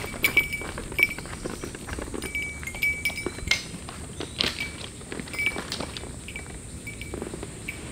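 Footsteps on dry forest leaf litter with small metal clinks ringing from carried camping gear, over a steady high-pitched drone of cicadas.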